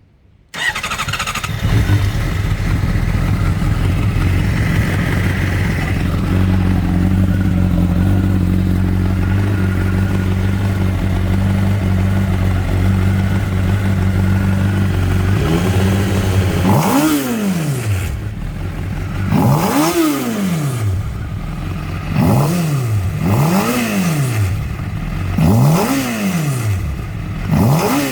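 A 2012 Honda CBR600RR's inline-four engine starts, idles steadily, then is revved in about six quick throttle blips from about 17 seconds on, each rising and dropping back as the throttle is let go. This is a demonstration of a screech that comes at high rpm after throttle release.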